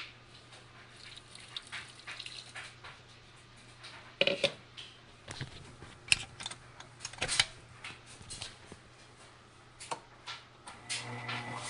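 Scattered knocks and clicks of kitchen handling around a stainless steel mixing bowl. Near the end a Breville stand mixer's motor starts and runs steadily.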